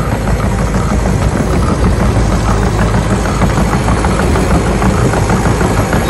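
A heavy engine idling steadily, a bulldozer engine sound.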